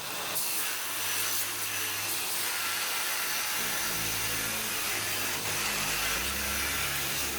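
A steady, hissing machine noise with no breaks, over background music.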